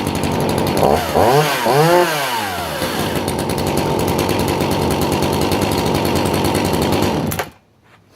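Sachs-Dolmar 133 chainsaw's 85 cc engine idling. It is revved up and back down twice about a second in, settles back to a steady idle, then cuts off suddenly near the end.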